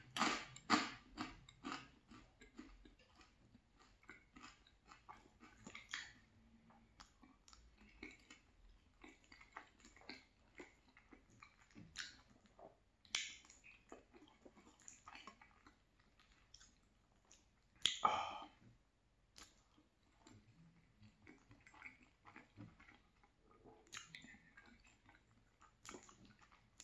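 Close-miked chewing of crunchy garlic bread, with dense crisp crunches in the first couple of seconds, then quieter, scattered chewing as creamy pasta is eaten, and one louder burst about 18 seconds in.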